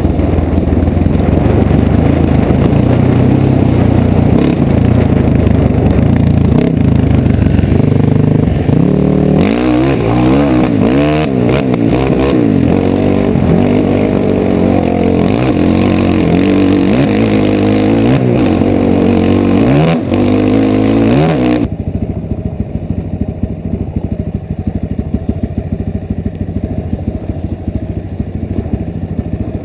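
Dirt bike engine running under way, revving up and down again and again as the throttle is worked. About two-thirds of the way through, the sound drops suddenly to a quieter, steady engine note.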